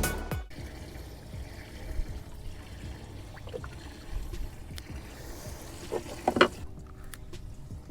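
Quiet water lapping and trickling under a low, steady rumble, with a few faint ticks and one brief louder sound about six seconds in.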